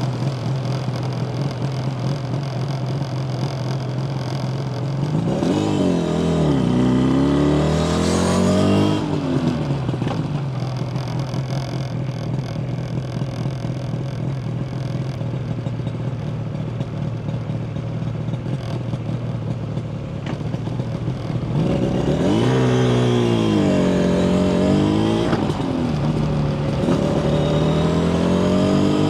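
Yamaha TZR250 1KT two-stroke parallel-twin engine running steadily, then revving up and dropping back in quick rises and falls about six seconds in and again past the twenty-second mark. The revs climb once more near the end.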